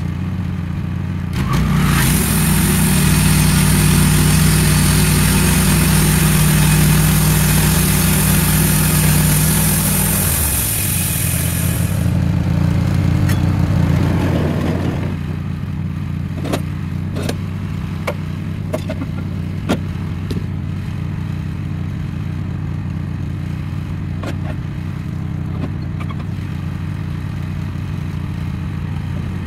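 Wood-Mizer LT15 portable bandsaw mill sawing a board from an ash log: the engine runs loud under load with the high hiss of the band blade in the wood for about ten seconds, then the cut ends and the engine settles to a quieter, steady run. Scattered sharp clicks and knocks follow through the rest.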